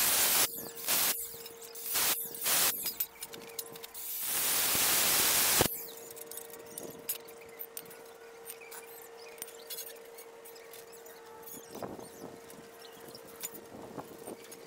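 Cordless angle grinder cutting galvanized steel channel: several short bursts of cutting in the first three seconds, then one longer cut of about a second and a half that stops abruptly. Afterwards only faint clicks and scrapes of the metal pieces being handled.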